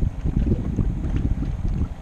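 Wind buffeting the microphone in an irregular low rumble, with choppy water lapping against a kayak hull.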